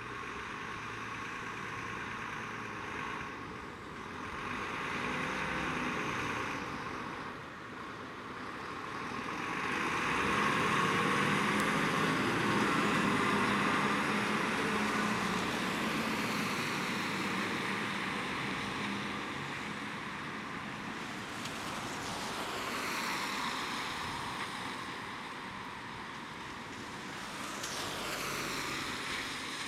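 MAN diesel fire engine carrying a Metz turntable ladder pulling out and driving past, its engine loudest about ten to fifteen seconds in, with tyres hissing on a wet road. Other traffic sweeps past near the end.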